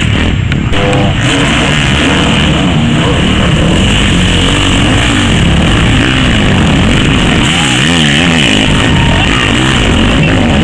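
Several motocross bikes revving hard as they ride past one after another, engine pitch rising and falling again and again with the throttle and gear changes.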